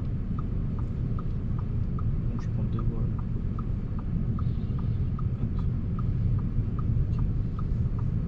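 Car's turn indicator relay ticking steadily in a tick-tock, about two and a half clicks a second, signalling a left turn. Under it is the low rumble of the engine and tyres inside the cabin.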